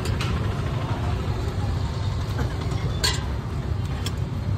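Steady low rumble of street and traffic noise, with a few short sharp clinks of steel utensils about three seconds in and again about a second later.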